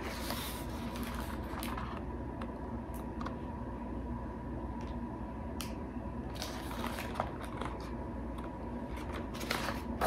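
Quiet room tone with a steady low hum, broken by scattered soft rustles and clicks as a large picture book is lifted, turned and held up. No bird call is heard.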